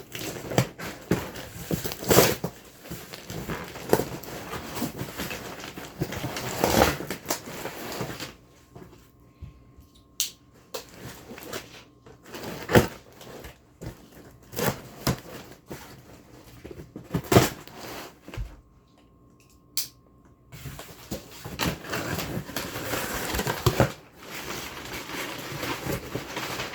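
A large cardboard shipping box being opened and rummaged through: cardboard crunching and packaging rustling, with scattered sharp knocks. It goes quieter for several seconds in the middle, then the rustling picks up again near the end.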